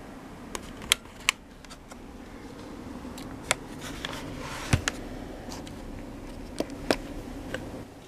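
Sharp plastic clicks and knocks from a Lenovo ThinkPad T420 laptop being handled, its lid opened and the power button pressed, with a low thump about five seconds in.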